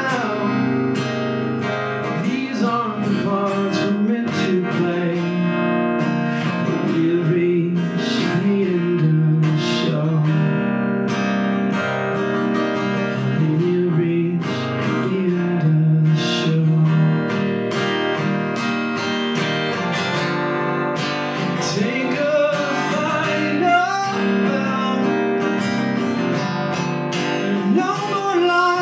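Acoustic guitar played through an instrumental break of a song, with steady strumming.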